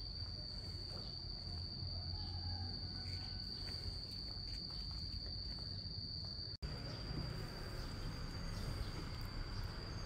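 A steady, high-pitched insect drone over a low background rumble, breaking off for an instant about two-thirds of the way in.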